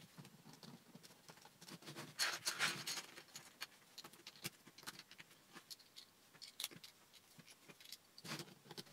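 Plastic Lego bricks clicking and rattling as hands sort them and work them apart. There is a busier stretch of rattling about two to three seconds in, and scattered single clicks through the rest.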